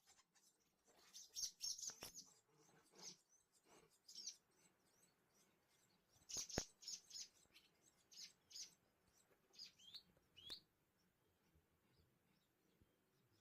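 Swallows chirping faintly: high, thin calls in several quick bursts, the last two ending in short rising notes.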